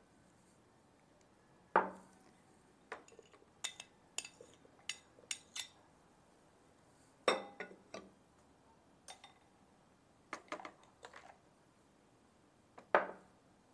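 Glass bowls, ceramic ramekins and a utensil clinking and knocking as ingredients are tipped and scraped into a food processor bowl: scattered single knocks, the loudest about two, seven and thirteen seconds in, with a run of light rapid clicks around four to five seconds in.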